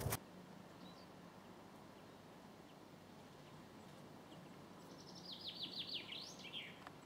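A songbird sings one short phrase about five seconds in: a quick run of about eight falling notes ending in a brief rising-then-falling flourish, over a faint steady outdoor hiss, with a few faint chirps earlier.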